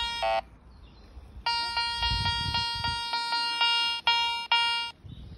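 Metal detector sounding its target tone as the search coil sweeps over a dug hole: two short beeps at the start, one lower-pitched, then about a second and a half in a long tone of about three and a half seconds, broken by brief regular dropouts, that cuts off near the end.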